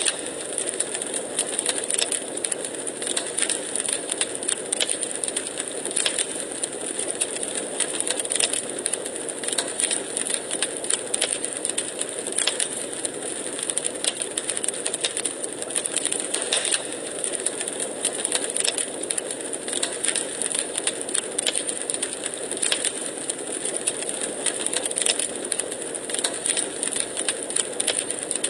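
Burning logs in a fireplace crackling steadily, a dense run of small sharp pops and snaps over a constant hiss.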